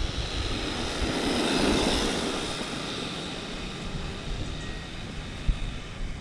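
Brushed electric motor and drivetrain of an Arrma Vorteks 550 Mega 2WD stadium truck running at full throttle. The whine swells as the truck passes, loudest about two seconds in, then fades as it runs off down the road. There is a brief knock near the end.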